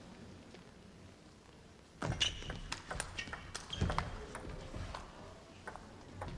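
Table tennis rally: the celluloid ball clicks sharply and irregularly off the bats and the table. It starts about two seconds in, after a short quiet pause.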